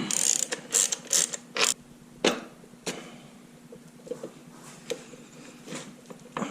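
A 9/16 ratchet wrench loosening the primary chain adjuster nut: a quick run of sharp rasping ratchet strokes over the first few seconds, then a few fainter clicks and clinks of metal.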